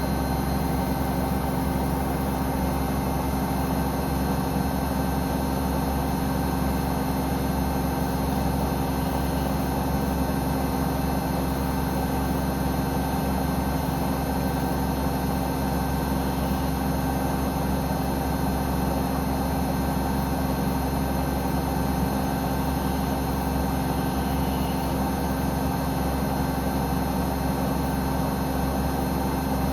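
Samsung Eco Bubble washing machine's drum spinning at a steady speed during a test spin: a constant mechanical hum with several steady whining tones from the inverter motor, unchanging throughout.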